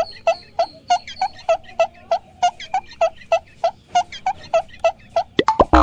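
A rapid string of short, identical high squeaks, evenly spaced at about three a second. Near the end comes a quick sweeping glide.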